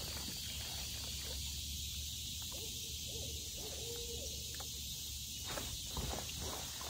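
Steady high insect drone of a swamp, with a faint low hooting call in the middle and a few light knocks near the end.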